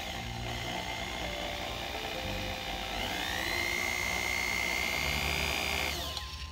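Cordless power drill boring a pilot hole into a broken bolt in a sway bar bracket. The motor runs steadily, rises in pitch to a steady high whine about halfway through, then winds down and stops near the end.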